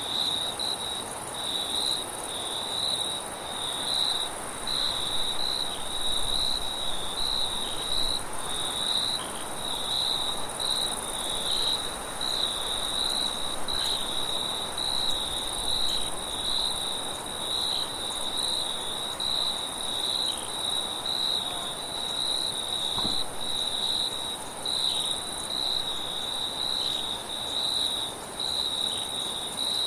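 Crickets chirping in a steady, rapid pulsing trill, with a fainter, even higher insect buzz above it over a soft, even hiss of night wind.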